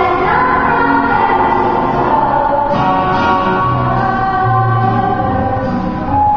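A choir singing with long held notes.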